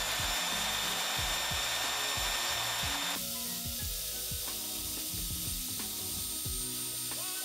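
Homemade drill press built from an old Soviet electric drill, running with a high steady whine. About three seconds in the whine drops away and a rough, ratcheting scrape takes over as the small bit cuts into a metal rod.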